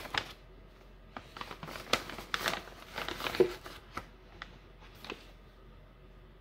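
Clear plastic bag of arrowroot powder crinkling and rustling as a metal measuring spoon is dug in and scooped out, a run of irregular short crackles that stops about five seconds in.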